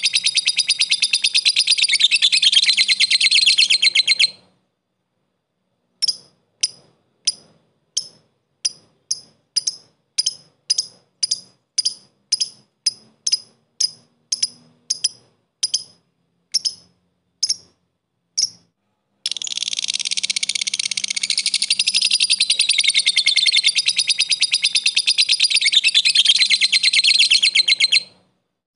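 Lovebird ngekek: a long, rapid run of high chattering notes, then a pause. Then comes a string of separate sharp chirps, about two a second (the 'ngetik' call), and after them a second long chattering run of about nine seconds.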